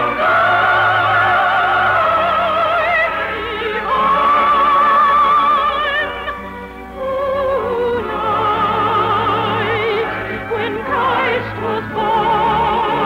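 Operatic singing with a wide vibrato over orchestral accompaniment, in a muffled early-1950s radio recording with no high treble. The music dips briefly about six seconds in.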